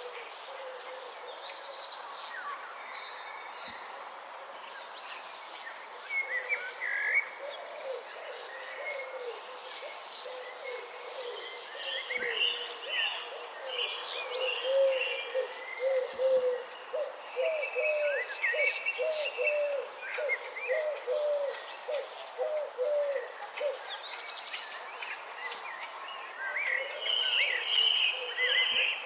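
Garden or forest ambience: a steady, high insect drone like crickets, with scattered bird chirps and calls over it. Through the middle, a low call repeats about once or twice a second.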